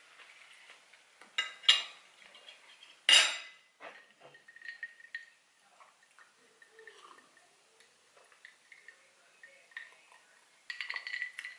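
A metal fork clinks against a dinner plate a few times, the sharpest knock about three seconds in, then softer small sounds of drinking sparkling water from a glass.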